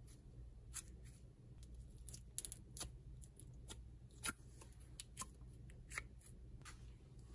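Thick, glossy slime being squished and pulled in the hands, giving faint, irregular sticky clicks and small pops.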